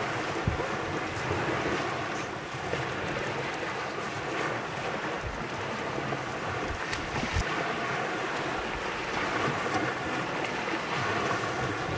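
Wind buffeting the microphone over small waves washing onto a pebble shore, a steady rushing noise.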